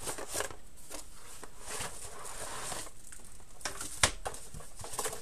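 Cardboard box and plastic wrapping rustling and scraping as a wireless keyboard and mouse set is slid out of its box, with scattered small clicks and one sharp knock about four seconds in.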